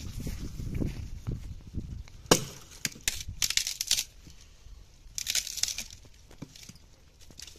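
Dry dead branches snapping and twigs crackling as brushwood is broken up and pulled apart by hand and hatchet. One sharp crack comes a little over two seconds in, followed by two spells of brittle crackling.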